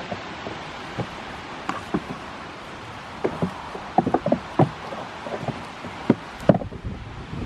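Goat kids sparring on a wooden deck: irregular hollow knocks and clatter from hooves striking the boards and heads clashing, bunched in a quick run around the middle, with wind noise on the microphone.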